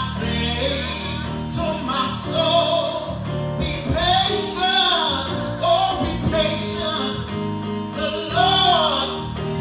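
Gospel music: singing with instrumental accompaniment and cymbals.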